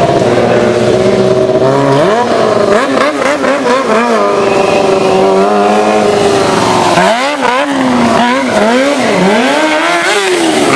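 Stunt motorcycle engine held at fairly steady revs through a wheelie, with a few changes in pitch. From about seven seconds in it is revved up and down in quick throttle blips, about two a second.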